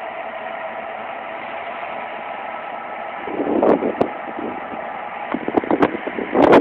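Steady drone of a ship's engines with a few held tones; from about three seconds in, irregular gusts of wind buffet the microphone, louder toward the end.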